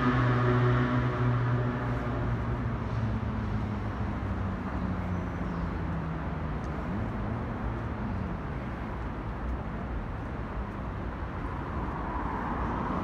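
Outdoor traffic noise: a droning engine hum that fades away over the first few seconds, then a steady rumble of distant road traffic.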